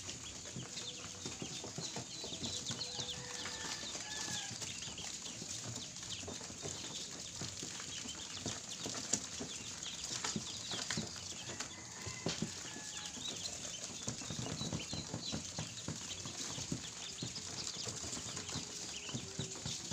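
A large brood of newly hatched ducklings peeping all at once, a dense unbroken chorus of short, high, overlapping calls.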